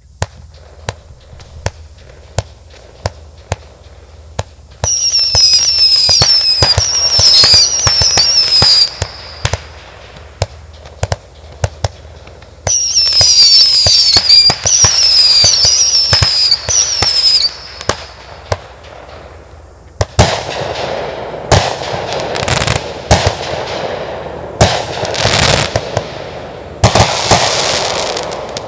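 Brothers 'Bling-Bling' 36-shot, 500 g fireworks cake firing its full display. A steady string of launch thumps comes about twice a second, with two spells of loud, high, wavering whistles that fall in pitch. The last third is a dense crackling barrage with loud bangs.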